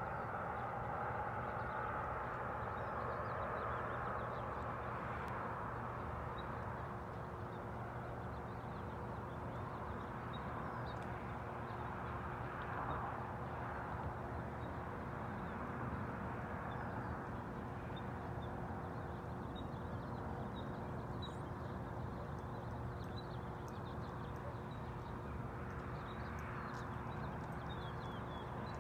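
Steady outdoor background hum and rumble, with a low constant drone, while faint short bird chirps come and go, a little more of them near the end.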